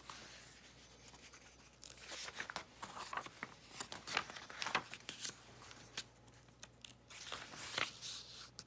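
Pages of a hardcover picture book being turned by hand: a run of irregular papery rustles and flaps starting about two seconds in.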